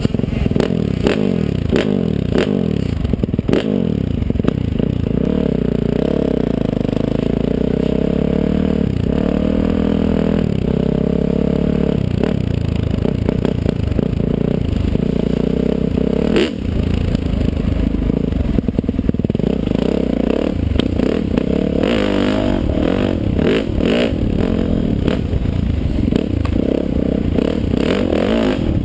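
Dirt bike engine revving up and down as it is ridden over a rough trail, its pitch rising and falling constantly, with frequent knocks and clatter from the bike over bumps. The engine sound dips briefly just past halfway.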